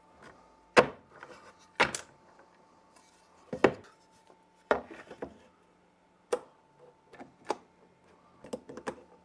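Handling noise of a CNC wasteboard slat being swapped: a T-handle hex key loosening and tightening the hold-down bolts, and MDF slats knocking against the aluminium rails. There are a handful of sharp knocks and clicks spread about a second apart, over a faint steady hum.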